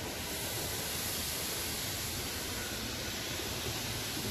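Water spray from a Magic Wand neXus touchless car wash beating steadily on the car's body and windows, heard from inside the cabin as an even hiss.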